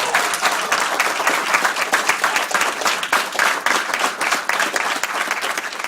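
Crowd applauding, a dense steady clatter of clapping that slowly tapers off near the end.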